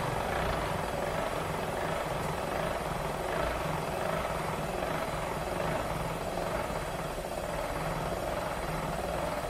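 Electric drill spinning a spring-loaded cylinder hone with 70-grit stones inside the cast-iron cylinder bore of a 1920 hit-and-miss engine: a steady grinding whir as the hone is worked in and out of the bore.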